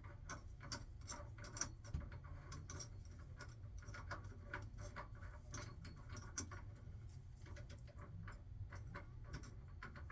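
Faint, irregular small clicks and rubs as the retaining nut is threaded by hand onto the grinding-wheel spindle of a Blademaster skate sharpener to secure a new wheel, over a steady low hum.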